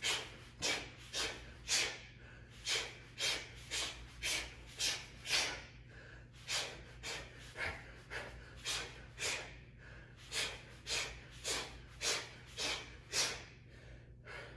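A man's short, sharp exhalations, one with each punch as he shadowboxes punch combinations, coming about two a second in runs with brief pauses between combos.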